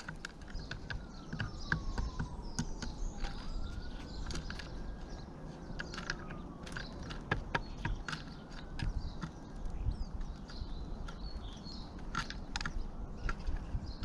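Pigeons pecking at food on a bird table: irregular sharp taps of their beaks on the seed, gravel and tray. Faint birdsong chirps behind.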